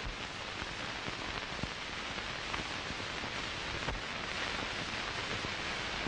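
Steady hiss with a few faint clicks from the soundtrack of an old 1930s film, with no music or voice.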